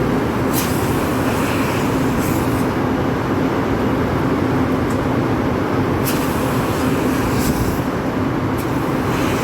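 Steady machinery drone with a constant low hum, broken by a few short sharp clicks or knocks.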